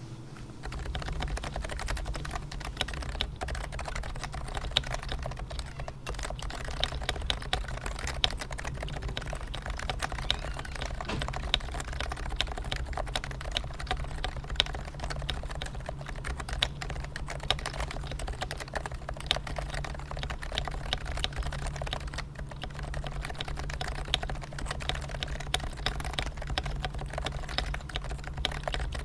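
Continuous fast typing on a Leopold FC660C keyboard with stock Topre Silent 45g switches, a dense, irregular run of keystrokes starting about a second in, over a steady low hum.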